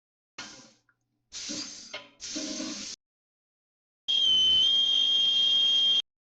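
A string of short sound-effect samples played back one after another, each cut off abruptly with dead silence between them. First come three or four brief noisy sounds. Then, about four seconds in, the loudest: a steady sound with a high whistle-like tone over a hiss, lasting about two seconds.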